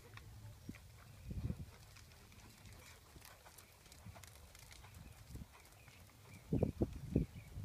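Horse's hooves falling on the sandy arena footing as it walks, soft muffled hoofbeats, with a few louder low thumps near the end.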